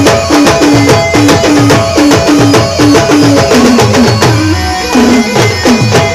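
A band playing a Timli dance tune: a fast, steady drum beat under a short repeating melody. About four and a half seconds in the melody drops out briefly over a low drum note, then the tune picks up again.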